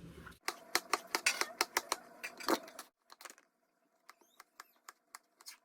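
Rapid sharp clicking and clattering for about two and a half seconds, then a few scattered clicks with some short high squeaks near the end.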